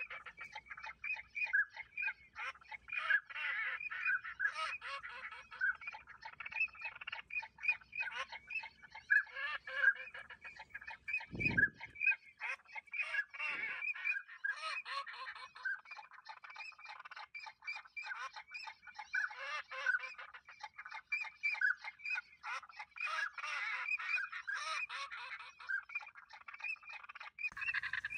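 Duck calls: many short quacking calls overlapping in a dense, unbroken chorus, with a brief low thump near the middle.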